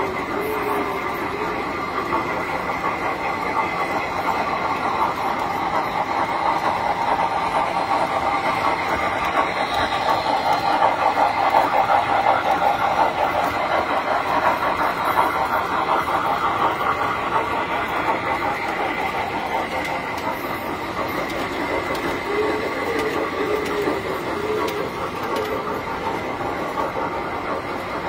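Tinplate toy trains running on metal track: a steady running rumble and clatter of wheels on the rails, swelling somewhat around the middle.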